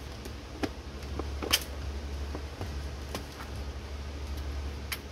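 Clear plastic compartment organizer box being handled, its lid opened and paper flowers picked through, giving a few sharp plastic clicks and taps, the loudest about a second and a half in. A steady low hum underneath.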